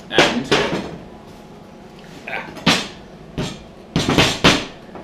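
Metal knocks and clunks from the welded steel frame and tines of a hand lawn aerator being handled on a steel workbench. There are about seven sharp knocks in small clusters, the loudest group near the end.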